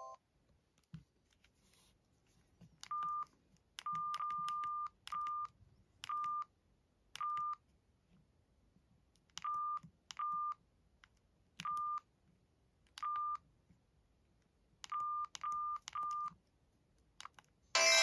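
Samsung SGH-T410 flip phone's keypad tones: about a dozen short beeps, all at the same single pitch, one per key press, unevenly spaced as the menus are stepped through, with faint clicks of the buttons.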